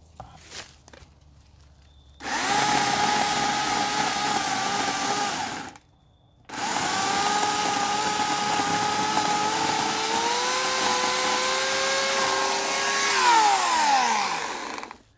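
Portland 14-inch electric chainsaw, a 9-amp corded motor, running as it cuts through a sapling at its base. The motor whines steadily, cuts out for a moment after about three seconds and starts again. Its pitch rises a little late on, then falls as it winds down near the end.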